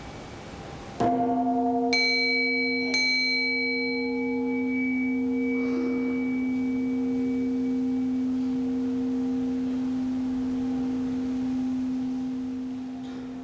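Buddhist temple bells: a large bowl bell is struck once about a second in and rings on as a long, steady low hum, and a small high-pitched bell is struck twice, a second apart, its ring dying away within a couple of seconds.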